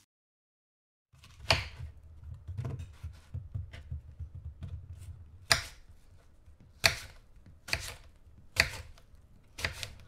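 Kitchen knife slicing through apples and striking a wooden cutting board: six sharp crunching cuts, irregularly spaced, with quieter scraping and handling between them. Silence for about the first second.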